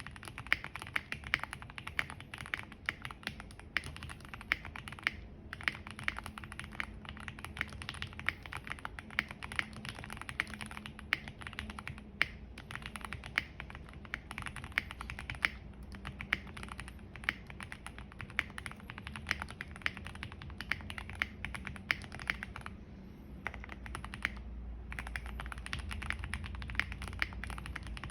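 Star75 custom mechanical keyboard typed on in quick, steady runs: factory-lubed Gateron Oil King linear switches on a polycarbonate plate with case and PE foam, under GMK ABS doubleshot keycaps. The typing pauses briefly about twelve seconds in and again for a second or two near the end.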